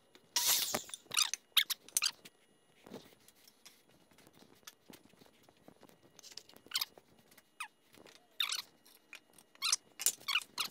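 A dozen or so short squeaks scattered through, several sliding down in pitch, from wooden boards being handled and fitted together.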